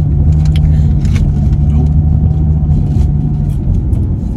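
Car running: a steady, loud low hum of engine and road noise.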